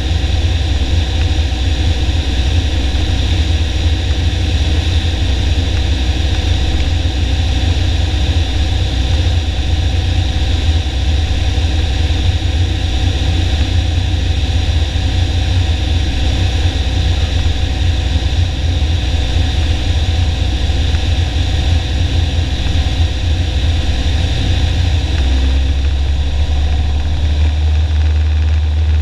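Piper Warrior's four-cylinder Lycoming engine and propeller droning steadily in flight, heard from inside the cockpit. The low drone shifts slightly about 25 seconds in.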